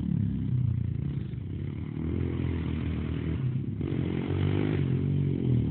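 Sport quads' single-cylinder four-stroke engines racing on a dirt track, revving up and down as they run through the gears, with a brief drop in pitch a little before four seconds in.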